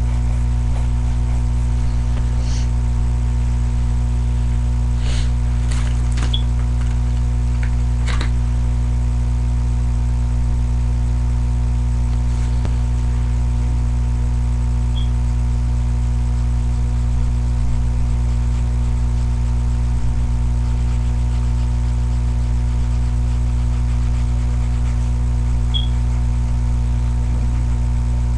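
Steady low electrical hum with a faint hiss over it, the kind of noise a webcam microphone picks up. A few faint short scratches or taps come in the first eight seconds or so.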